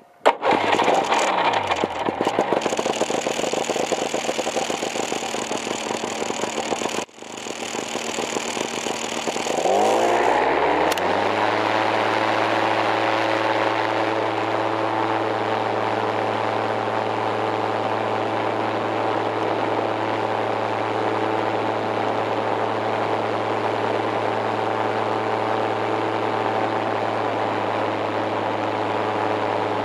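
Paramotor trike's engine and propeller running. The pitch falls over the first couple of seconds, cuts out briefly about seven seconds in, rises around ten seconds in, then holds steady.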